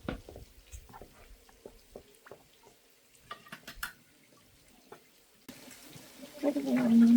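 Scattered water drips and small clicks. Near the end the background changes and a held, voice-like tone begins.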